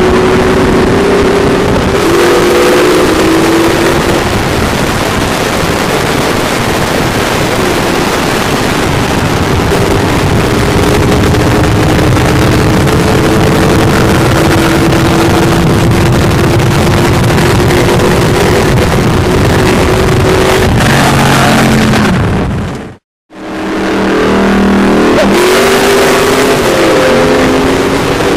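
V8 engines at full throttle in a rolling-start drag race from 60 mph, a cammed LS1 Camaro with long-tube headers against a 6.0-litre Silverado pickup, under heavy wind rush. The engine pitch breaks about two seconds in, then climbs slowly for most of the run. Near the end the sound cuts out for a moment and comes back with the engine pitch rising and falling.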